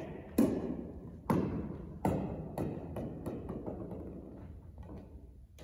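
Tennis ball bouncing on a hardwood gym floor, its bounces coming quicker and softer until it settles, each with a short echo in the hall. A louder knock comes right at the end.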